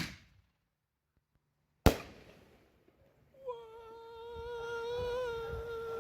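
A firework ball shell bursting overhead with a single sharp bang about two seconds in, after the mortar launch thump at the very start dies away. From about three and a half seconds a steady, slightly wavering held tone sounds.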